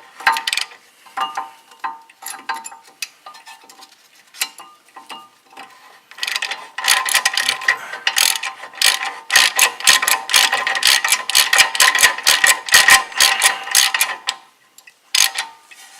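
Half-inch hand ratchet with a 21 mm socket clicking as a bolt is run down by hand. A few scattered clicks at first, then fast, steady ratcheting from about six seconds in until near the end.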